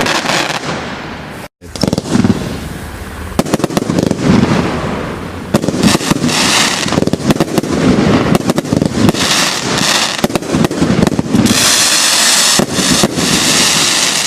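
Firework barrage cake ('Noisy Neighbours' by Absolute Fireworks) going off in a rapid string of loud bangs and crackles, with a dense crackling hiss in the last few seconds. The sound cuts out for an instant about a second and a half in.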